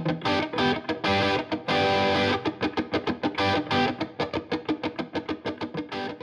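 Outro music: electric guitar with distortion playing fast, rapidly picked notes, with a held chord about a second in.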